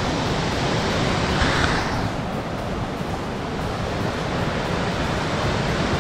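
Rushing glacial mountain creek pouring over rocks in rapids: a steady, full hiss of white water that swells briefly about a second and a half in.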